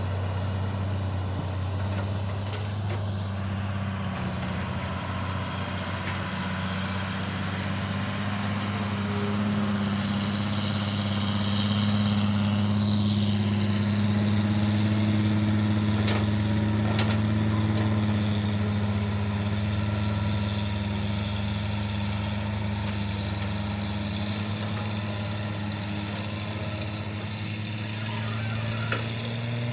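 Heavy diesel engine of earthmoving equipment running steadily at a low, even pitch, swelling a little louder for several seconds mid-way as it takes load.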